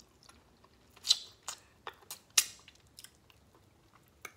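Close-miked eating of steamed shrimp: a scatter of short, sharp crackling clicks of biting, chewing and shell peeling, the loudest about a second in and about two and a half seconds in.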